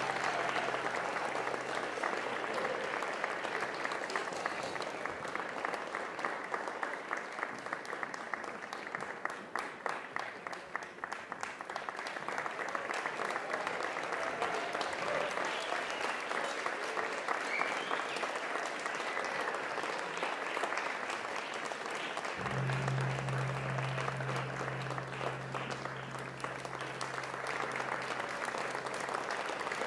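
Audience applauding steadily and at length. A low, steady hum comes in about three-quarters of the way through.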